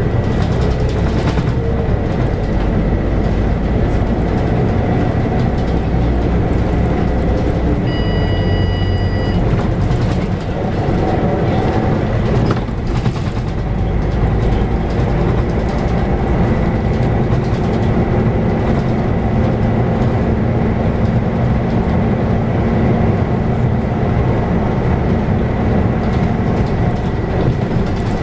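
Scania K94UB bus under way, its 9-litre six-cylinder Scania DC9 diesel engine running steadily, heard inside the cabin, with a faint high whine throughout. A short electronic beep sounds about eight seconds in.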